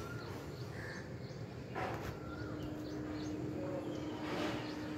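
Outdoor ambience with scattered short bird calls over a low background rumble, and a steady low hum that starts about two seconds in.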